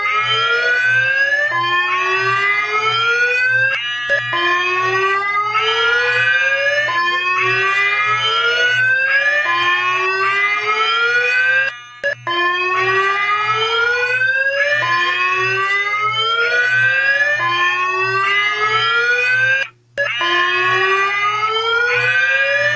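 Emergency alert alarm tone sounding an earthquake warning: a rising electronic whoop repeated about every 1.25 seconds over a low pulsing hum. It briefly cuts out twice, about halfway through and again near the end.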